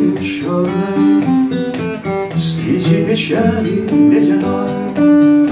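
A man singing a Russian bard song to his own acoustic guitar, which he plays along under the voice.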